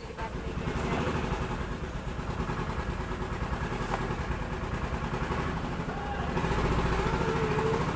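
An engine idling, a steady low pulsing throb that grows a little louder about six seconds in.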